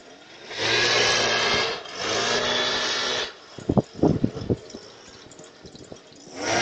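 Leaf blower revved in two bursts of about a second each, one straight after the other, then a quick run of sharp knocks about four seconds in; the blower starts up again near the end.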